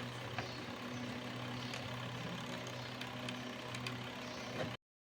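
Semi-automatic washing machine motor running with a steady hum. It cuts off abruptly near the end.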